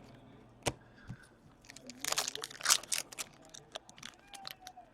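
Crinkling and crackling of a trading-card pack wrapper and cards being handled, densest about two to three seconds in, after a single sharp click near the start.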